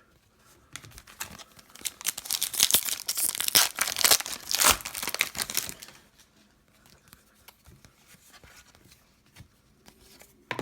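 Crinkling and tearing of a plastic trading-card pack wrapper being handled and ripped open, a dense crackle for about five seconds that then stops, leaving only faint rustling.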